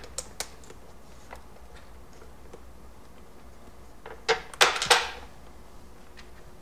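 Light clicks of bolts, washers and nuts being handled and fitted through the trunk box mounting holes by hand, with a short cluster of louder knocks and rattles about four and a half seconds in.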